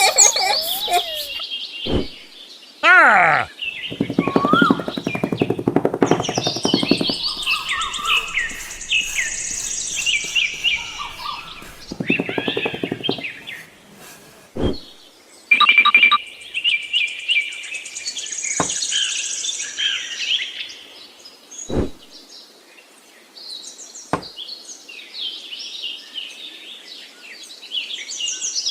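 Birds chirping and twittering, with a few sharp clicks scattered through it.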